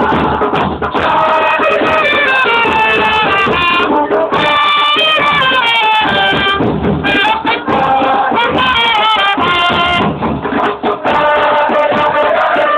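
Football supporters' terrace chant: a crowd singing along to a loud, continuous band melody whose notes step up and down in runs.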